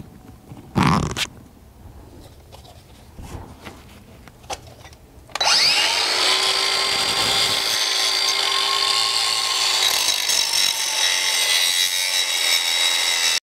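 Handling noise with a knock about a second in, then about five seconds in a DeWalt DCG412B 20V cordless angle grinder starts, spins up with a rising whine and grinds into a bolt in a concrete floor: a steady high whine over a loud grinding hiss, cutting off suddenly at the end.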